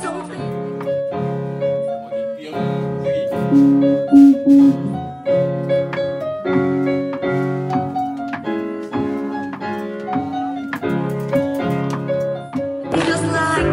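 Electronic keyboard played with a piano sound: a repeating melody over steady chords. A short louder run of notes comes about four seconds in.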